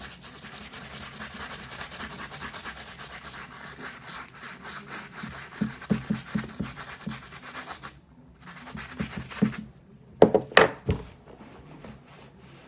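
Rapid, steady back-and-forth scrubbing of a sneaker's sole, working at a stubborn dirty spot on the heel. The scrubbing stops about eight seconds in, and a couple of louder handling bumps follow about two seconds later.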